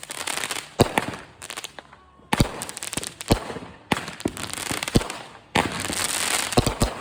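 Consumer fireworks going off: a string of sharp bangs, roughly one a second, with crackling hiss between them and a dense stretch of crackle near the end.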